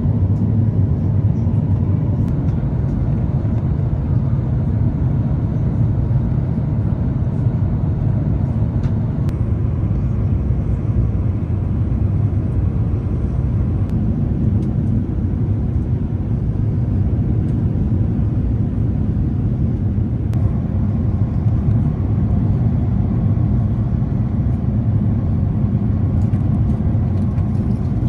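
Cabin noise aboard an Airbus A350 in flight: a steady, loud low drone of engines and airflow, with no marked changes.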